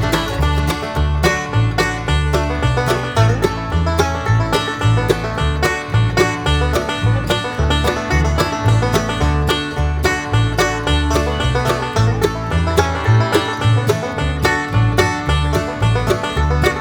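Background bluegrass music: fast banjo picking over guitar and a walking bass line.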